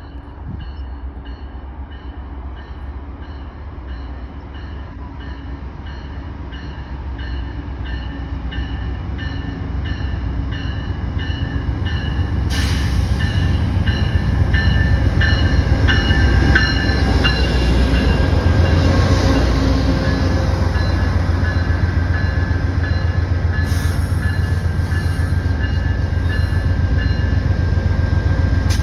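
Amtrak P42 diesel locomotive pulling a passenger train into a station, its low engine rumble growing louder as it comes close and then holding steady as the cars roll past. A bell rings about twice a second through the approach.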